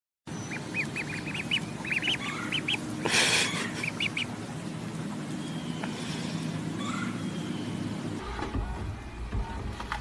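Ducklings peeping: a quick run of short, high peeps through the first four seconds, broken by a brief rush of noise. Near the end a low steady hum sets in.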